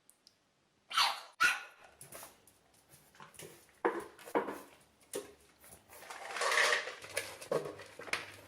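A dog barking repeatedly in short separate barks: two close together about a second in, more at intervals after, and a longer one near the end.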